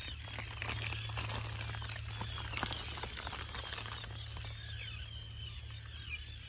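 Many short, high chirps of birds calling continually, with crinkling and rustling of a plastic tarp and mesh screen close by.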